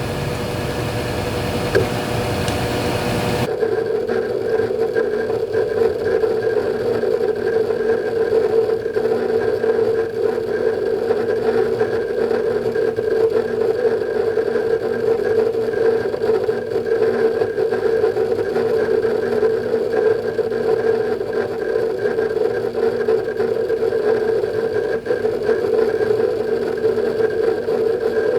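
Western Digital Ultrastar hard drives in a Synology DS220+ NAS under benchmark load: a steady hum with fast, irregular seek clicking. About three seconds in, a broader hiss drops away and the hum and clicking continue.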